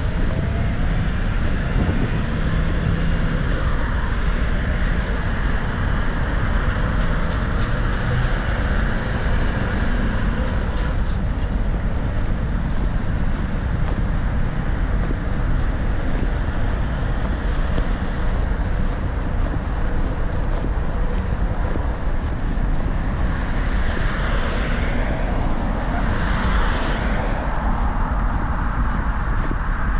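Road traffic: cars passing on the street, one going by close near the end, over a steady low rumble.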